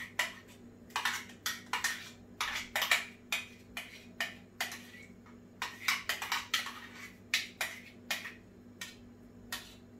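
A spoon scraping and knocking against a small bowl in quick, irregular taps, working blended asparagus paste out into a pan. A steady low hum runs underneath.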